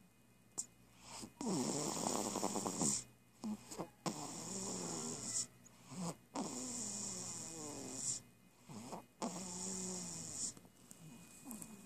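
Snoring in a slow, steady rhythm: four long buzzing snores, one about every two and a half seconds, each followed by a short breath and a brief quiet pause.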